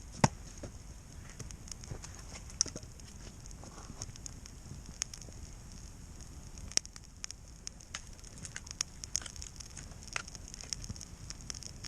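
Wood campfire crackling, with sharp, irregular pops; the loudest pop comes just after the start.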